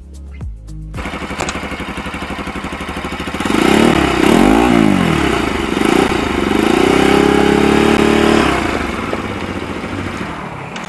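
Motorcycle engine running: it idles with a steady pulse, is revved up and down a few seconds in, is held at higher revs for a few seconds, then eases back off near the end.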